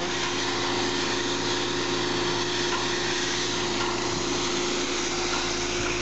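Carrier central air-conditioner outdoor condensing unit running: the condenser fan and compressor give a steady hum with a constant tone. Its condenser coil has just been hosed down, which the owner says quieted the compressor by lowering the head pressure. About five seconds in, a low rumble comes in as the fan's discharge air blows across the microphone.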